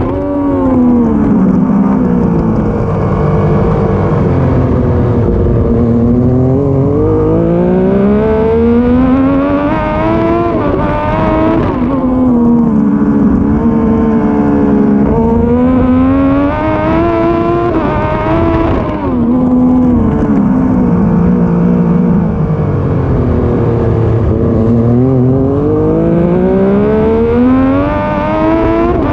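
Triumph Daytona 675's three-cylinder engine at racing speed, heard on board. Its revs climb and fall away again several times as the bike accelerates out of corners and slows for the next, with a short drop in pitch at each gear change.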